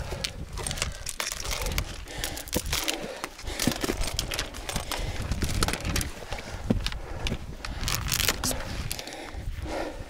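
A hiker moving over rock: irregular sharp clicks, scrapes and rustling from boots, clothing and pack, over a gusty low wind rumble on the action camera's microphone.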